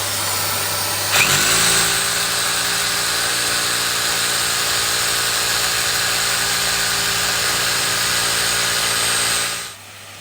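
Electric drill running steadily as it bores into the wall to mount a light over the bed: it spins up about a second in, holds an even pitch, and cuts off near the end.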